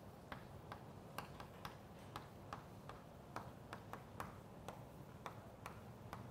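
Chalk tapping and scratching on a chalkboard during handwriting: faint, irregular clicks, about two a second.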